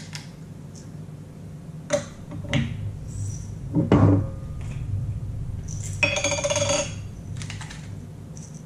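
Spice grinders handled over a glass cup: a few clinks and knocks as one grinder is set down on the wooden counter and another picked up, the loudest about four seconds in, then about a second of gritty grinding.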